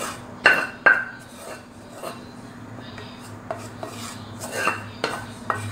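A cooking utensil scraping and knocking against a nonstick wok as the last noodles and vegetables are scraped out into a bowl. Two sharp, ringing knocks come about half a second and a second in, followed by lighter clicks and scrapes.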